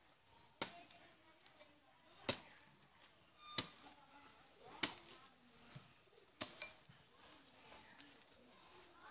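A short-handled metal hand tool striking down into the ground again and again, a sharp hit about every second and a half.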